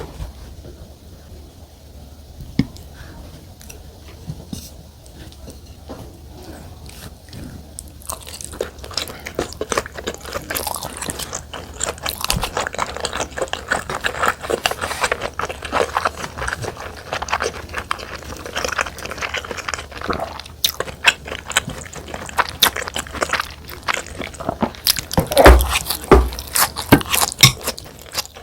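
Close-miked eating sounds: wet chewing and mouth clicks of someone eating soy-marinated salmon with rice. Sparse and quiet for the first several seconds, then steady, dense chewing from about eight seconds in, with a louder knock near the end.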